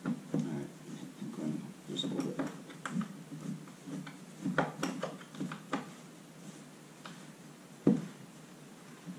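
Irregular knocks, taps and rubbing from the parts of a carpet-covered cat tree being fitted together by hand, with one sharper knock near the end.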